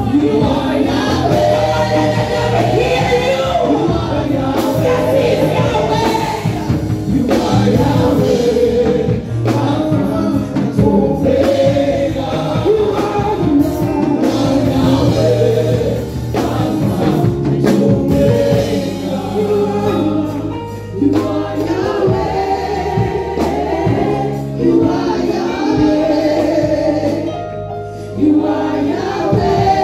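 Live gospel worship song: several singers on microphones singing together over instrumental accompaniment with a steady low bass.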